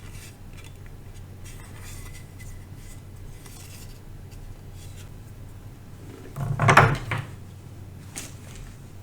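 Pin headers and the circuit board being handled and fitted together on a bench: light clicks, with one louder clatter about six and a half seconds in.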